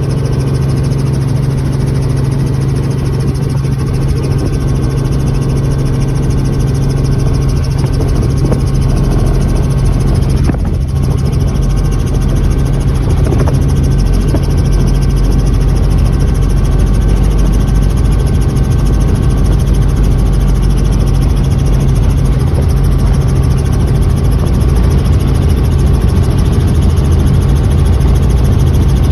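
Helicopter engine and rotor noise: a loud, steady drone with a strong low hum, slowly growing louder.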